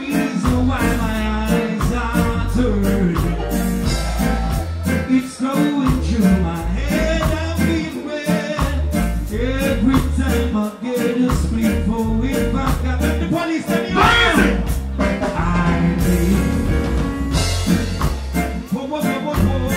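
Live reggae music played loud over a stage sound system: a heavy bass-driven rhythm with a steady beat, and a man singing into a microphone. The bass drops out briefly several times.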